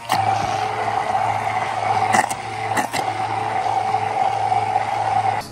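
Stick (immersion) blender running in a plastic cup, its motor humming steadily as it blends garlic aioli, with a few brief clicks from the blade head against the cup; the motor cuts off shortly before the end.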